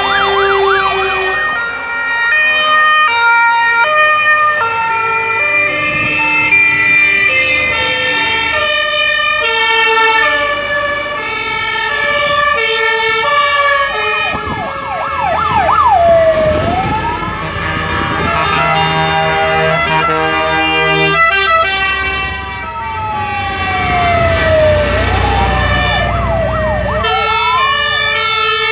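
Fire engine sirens sounding as a column of Iveco and Magirus fire trucks drives past: a fast yelp at the start and again about halfway, then slow rising and falling wails through the second half. Background music plays throughout, and a truck's engine rumble swells near the end.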